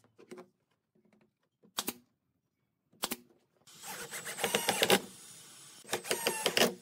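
Cordless drill driving wood screws into a pine armrest, a motor whine with rapid clicking, in two runs: about a second and a half long a little past halfway, then a shorter one near the end. A few light clicks come before.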